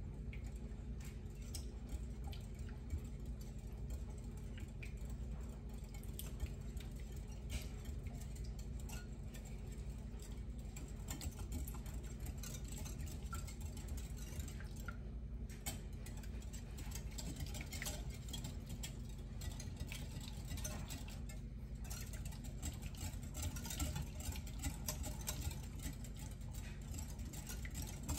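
Wire whisk beating beaten eggs, milk and ricotta in a bowl: light, irregular clicking of the wires against the bowl, over a steady low hum.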